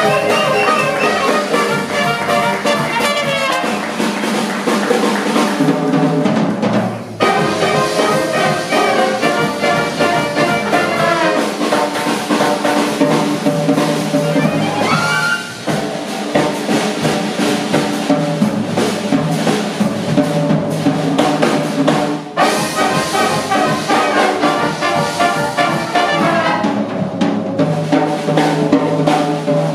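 Jazz band playing live: trumpet, trombone and clarinet together over double bass, drum kit and a Yamaha keyboard.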